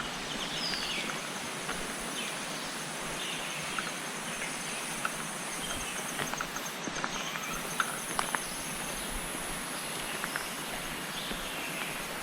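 Forest ambience: a constant high insect drone over a steady rush of water, with short bird chirps and scattered light clicks throughout.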